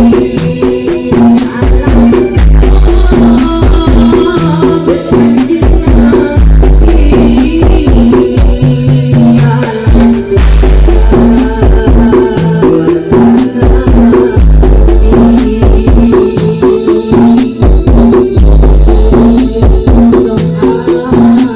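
DJ dance music played very loud through a large carnival sound system on a sound check, with long, very deep bass notes recurring every few seconds under busy rattling percussion.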